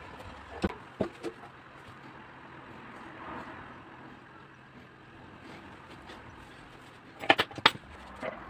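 Sharp knocks and clicks of hand work on a washing machine being taken apart for a bearing change: three about a second in, then a louder quick cluster of four or five near the end.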